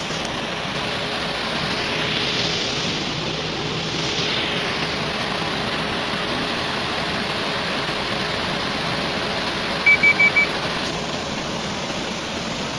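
Water rushing through a freshly cut opening, a steady even roar of pouring water. About ten seconds in come four quick high beeps, all at one pitch.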